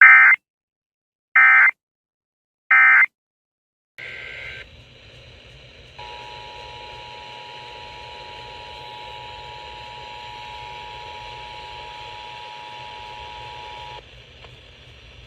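Emergency Alert System end-of-message data: three short, loud bursts of warbling SAME data about a second apart. After a hissy break with a brief data burst, the EAS two-tone attention signal (two steady tones near 850 and 960 Hz) sounds for about eight seconds, announcing the next warning.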